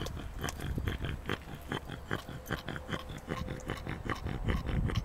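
Yorkshire terrier sniffing and snuffling at the ground with its nose, in quick short sniffs, about three or four a second.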